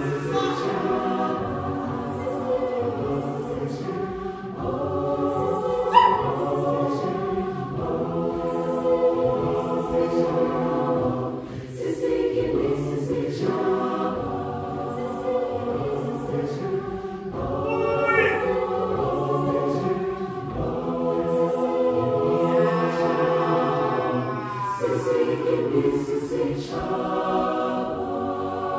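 Large mixed choir singing a South African gospel song in full harmony, with the singers clapping along.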